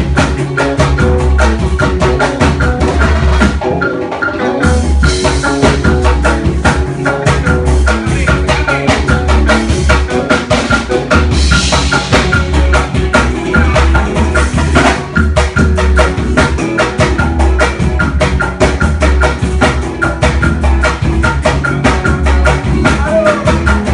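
Band music playing without vocals: a steady, fast drum beat over a heavy bass line, with a bright melody line on top.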